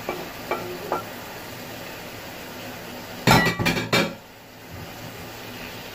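A kitchen utensil knocking and clinking several times in quick succession against a frying pan and dishes, about three seconds in, over a faint steady hiss.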